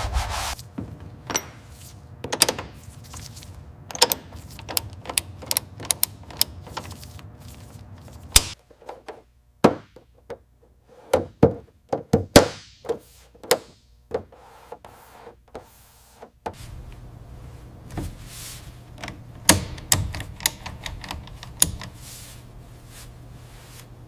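A series of irregular knocks, clicks and taps, some sharp and loud, over a low steady hum that stops about eight seconds in and returns near sixteen seconds.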